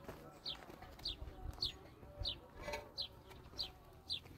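A small bird chirping: one short, high note falling in pitch, repeated evenly about twice a second.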